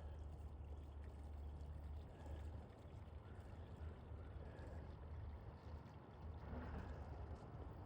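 Faint, steady low rumble of a vehicle driving, with a light hiss of road noise.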